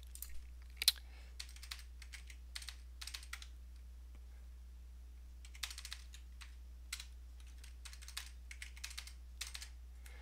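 Computer keyboard typing: scattered keystrokes in small irregular clusters, over a faint steady low hum.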